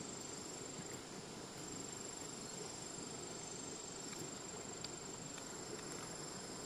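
Insects trilling: one steady, high, unbroken tone over an even background hiss.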